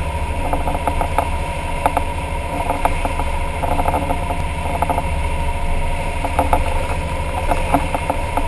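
Sportfishing boat's engine running steadily under way at trolling speed, with the rush of the wake and frequent short knocks and rattles.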